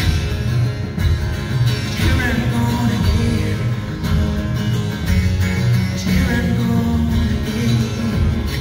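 Live band playing an instrumental passage: strummed acoustic guitar and electric guitar over a steady beat from the drums.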